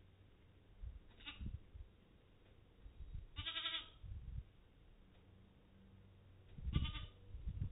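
Katahdin sheep bleating just after lambing, from the ewe and her newborn twin lambs: three short calls, a brief one about a second in, a longer one in the middle and another near the end. Soft low sounds come and go between them.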